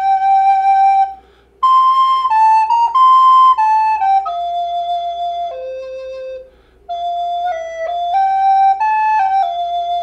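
Soprano recorder playing a slow hymn melody one note at a time, with short pauses for breath about a second in and again just past halfway. The second phrase steps down to its lowest note just before that second pause.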